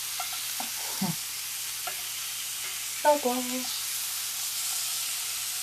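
Chicken breasts sizzling in an oiled heavy cast-iron skillet, a steady frying hiss, while a plastic utensil knocks and scrapes against the pan as the pieces are turned. A brief squeak about three seconds in is the loudest sound.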